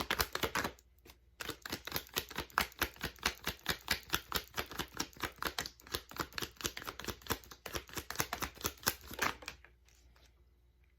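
A tarot or oracle deck being shuffled by hand: a fast run of card flicks and slaps, several a second. It pauses briefly about a second in and stops near the end.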